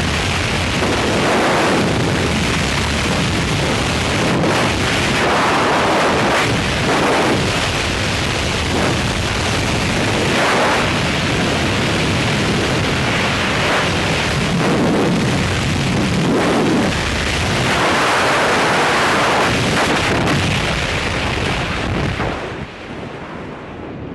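Freefall wind rushing and buffeting over the camera microphone in swelling gusts. It drops sharply near the end as the parachute opens and the fall slows.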